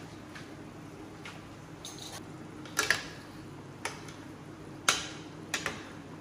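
Metal spoon stirring a simmering broth in a stainless steel skillet, clinking against the pan several times, the loudest clinks about three and five seconds in.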